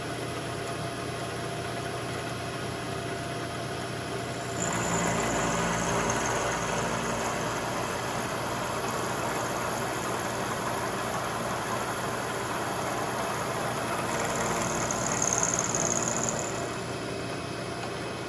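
Vertical milling machine running, its end mill cutting a flat in a steel vise-jaw blank. About four and a half seconds in the cut gets louder and noisier, with a high whine that comes and goes twice. It is loudest a few seconds before the end.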